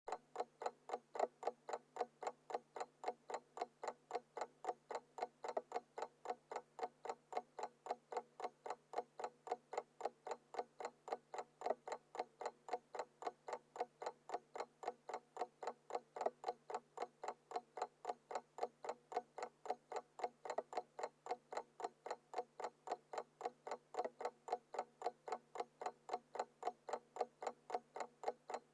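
Small mechanical alarm clock ticking in a rapid, even rhythm.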